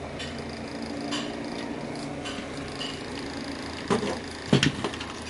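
Circuit board knocking and clicking against its sheet-metal chassis as it is handled. A few light clicks come first, then a sharp knock about four seconds in and a quick run of louder knocks just after.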